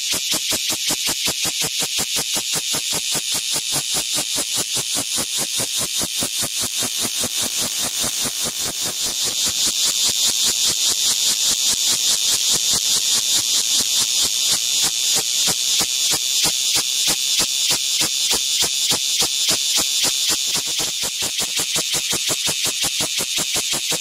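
Male cicada singing at very close range: a loud, shrill, rapidly pulsing buzz with several pulses a second, growing a little louder about nine seconds in.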